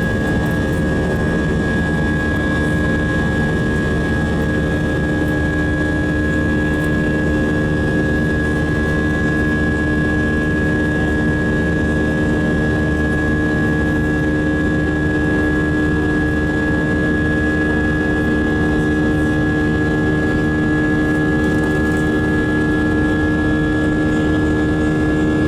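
Airbus A320 jet engines and airflow heard from inside the aircraft in flight: a steady rumble and rush with a constant high whine over a lower hum.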